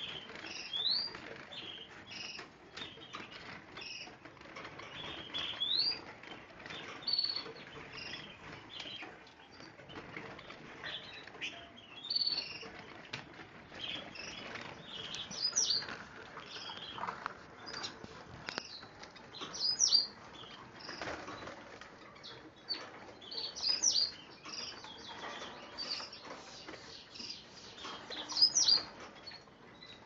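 Caged finches chirping and giving short rising whistle notes, mixed with the flutter of wings and small knocks and rustles as the birds hop about the cages. The calls come in scattered bursts, with the loudest chirps about two-thirds of the way in and near the end.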